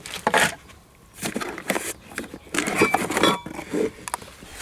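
Small metal tool accessories, wrenches and an adaptor, clinking and knocking as they are handled and set down, in a string of short sharp knocks with a brief metallic ring on a few of them.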